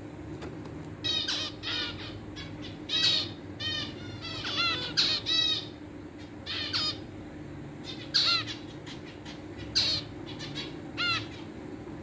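Aviary birds calling: about ten short, harsh calls at irregular intervals, some in quick pairs, over a steady low hum.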